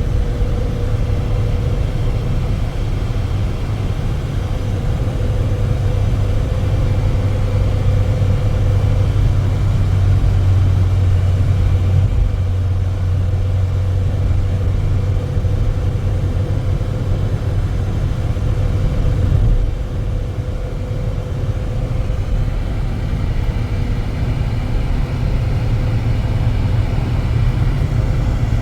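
A motor vehicle's engine running steadily with a low rumble, a faint steady whine above it and a brief drop in level about twenty seconds in.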